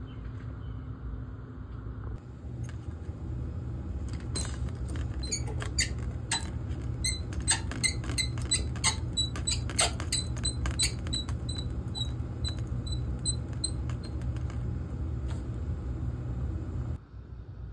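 Red handwheel shutoff valve on a hose bib water line turned open by hand to put the water back on: a run of quick clicks and clinks with a light ringing, over a steady low rumble.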